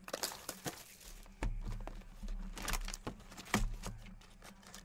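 Light handling noises of trading card packs and cards: irregular crinkles of wrappers and short taps and clicks, over a faint steady electrical hum.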